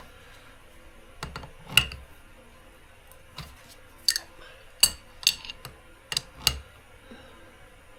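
Sharp metallic clicks and clinks, about eight at irregular intervals, from the chain tool being worked while the master link's side plate is pressed onto the motorcycle chain.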